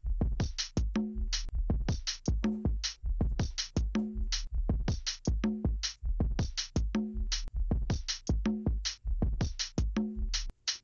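Background electronic music with a steady drum-machine beat.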